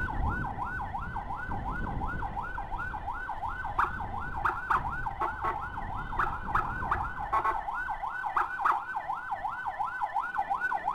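Electronic emergency siren in fast yelp mode, sweeping up and down about four times a second without a break. A low rumble of engines and traffic runs under it and fades out about two thirds of the way through.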